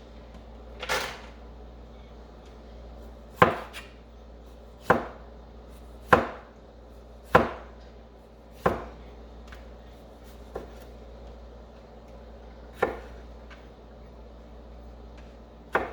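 Kitchen knife slicing through tomatoes and striking the cutting board, about nine separate knocks at an uneven pace, a second or more apart.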